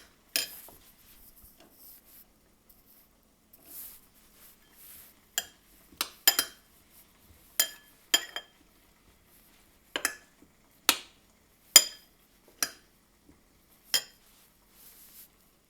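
A small metal spoon clinking against a dish, about a dozen sharp, ringing taps at uneven intervals, as harissa is spooned out and knocked off the spoon.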